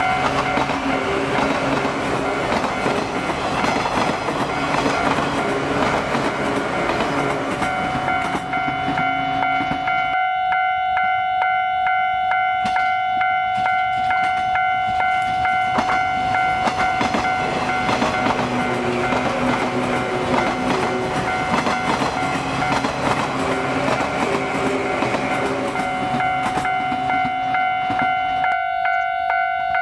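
Two JR 115 series electric trains run past one after the other. The first passes close and fades by about ten seconds in. The second comes up and passes in the second half, and is gone near the end. A steady high whine carries on under both.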